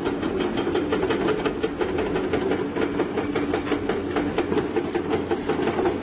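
Hydraulic excavator's diesel engine running steadily, with a fast, irregular clatter over it.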